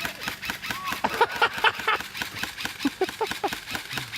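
Airsoft electric rifle firing a rapid full-auto stream of shots, about ten a second, with short shouts from a person mixed in.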